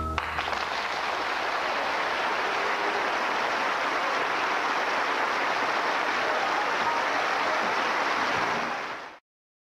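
Audience applauding steadily, cut off abruptly about nine seconds in.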